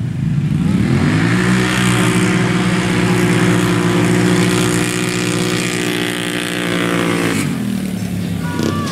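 ATV engines launching at full throttle off a drag-race start: the pitch climbs over the first second and a half, holds high and steady, then drops away as the throttle is let off about seven seconds in.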